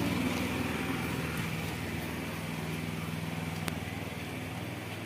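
An engine running steadily, a low hum that fades a little, with one short click partway through.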